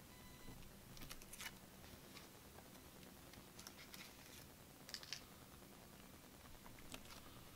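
Near silence broken by a handful of faint, brief rustles and clicks from sleeved trading cards and plastic being handled.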